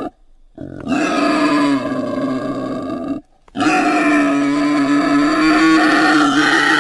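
Dinosaur roar sound effect: two long, pitched, growling roars with a short silence between them, the first starting just under a second in and the second lasting about three seconds.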